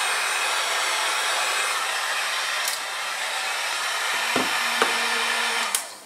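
Heat gun blowing steadily as it melts a seal line across a thin plastic garment bag. It is switched off just before the end and its noise cuts out.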